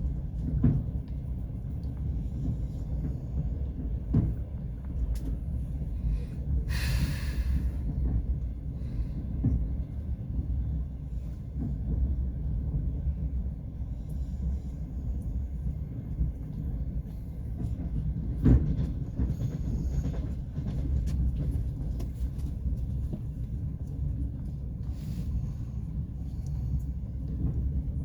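Passenger train running along the track, heard from inside the carriage: a steady low rumble of the wheels and running gear, with a few sharp knocks and a short hiss about seven seconds in.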